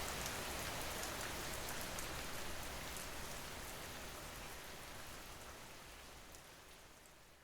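Steady rain falling, with fine patter of drops, fading out gradually toward the end.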